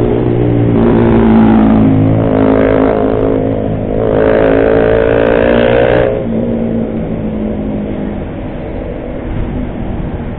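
Motor vehicle engine running in traffic, its note rising in pitch three times between about one and six seconds in and then cutting off abruptly. Steadier riding noise continues after that.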